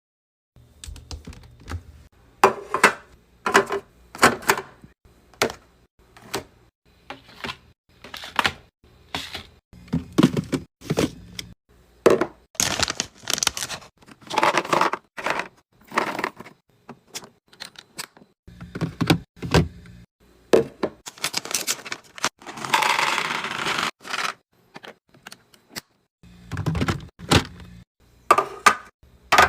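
Restocking sounds: containers and packages being handled and set down, making a run of sharp clicks, knocks and clatters, with a longer hissing rustle about 22 seconds in.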